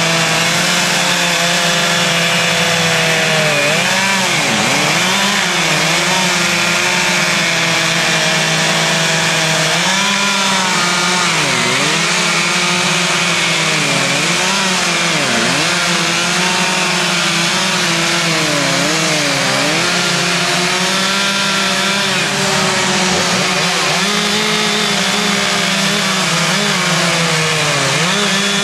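Several two-stroke chainsaws running at once as they carve wood, each revving up and down on its own so that their pitches rise and fall against one another, over a steady low hum.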